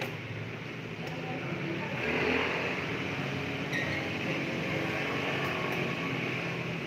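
Spiral dough mixer running: a steady motor hum with a whirring noise that grows louder about two seconds in.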